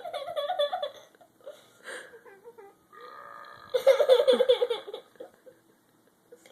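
Two bursts of burping mixed with laughter: one at the start and a louder one about four seconds in, each wavering in pitch.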